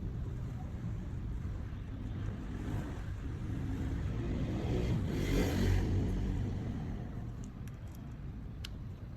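Low traffic rumble, with a vehicle passing that swells about five seconds in and then fades. A few faint clicks near the end.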